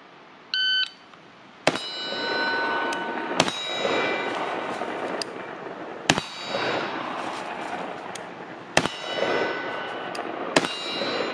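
Shot-timer start beep, then five rifle shots a few seconds apart, each followed by the ring of a hit steel target. Rustling of movement fills the gaps between shots as the shooter changes position: standing, kneeling, prone and back up.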